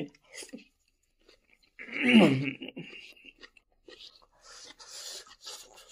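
A person eating rice and vegetables with chopsticks: a loud slurping mouthful about two seconds in, then chewing, with chopsticks scraping rice from a plastic takeaway box.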